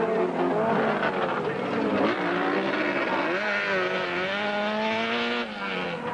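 Autocross race car engines revving hard, their pitch rising and falling as the drivers accelerate and lift through the corners, with more than one engine heard at once.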